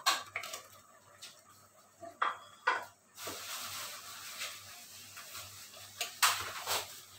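A metal spoon clinks and scrapes against a ceramic plate as sliced bitter gourd is pushed off it into a pot. From about three seconds in, a steady hiss rises as the slices slide into the simmering coconut milk, with a few more spoon clicks near the end.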